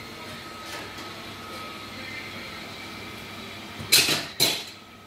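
Two loud, sharp knocks about half a second apart, near the end, over a steady background hum.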